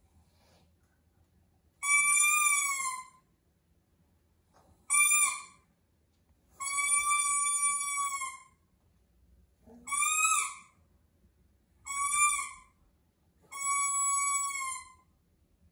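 Baby's toy trumpet blown in six toots, each a single high note held from about half a second to two seconds, with short pauses between.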